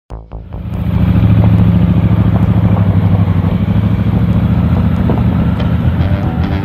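Honda Africa Twin CRF1000D's parallel-twin engine running steadily with a low, pulsing note while the motorcycle rides along a gravel road. The sound cuts in abruptly and builds to full level over about the first second.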